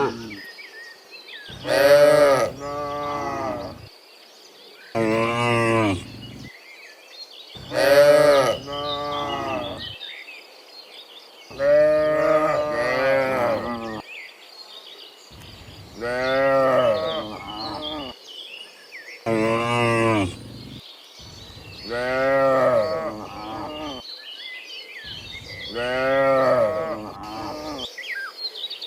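Cattle mooing: a herd's cows calling one after another, about eight long, loud moos spaced a few seconds apart, some rising and falling in pitch.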